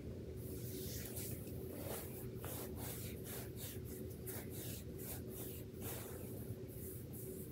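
Quiet room tone with a steady low hum, and soft, irregular rustles and scuffs as a person shifts while sitting on a carpeted floor.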